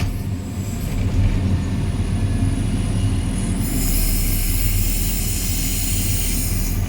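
JCB 3CX backhoe loader's diesel engine running under load while its hydraulic breaker is not hammering, with a high screech coming in about halfway through and lasting about three seconds.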